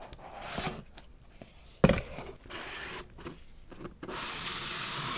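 Gloved hands handling white cardboard packaging: card rubbing and rustling, with one sharp knock a little under two seconds in, the loudest sound. From about four seconds in comes a long, steady scrape of card sliding over card or the tabletop.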